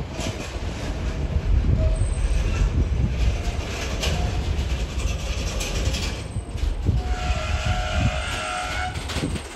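A train rolling past close by: a heavy rumble with wheels knocking over the rail joints. A brief squeal rises out of it about seven seconds in, and the noise falls away at the very end.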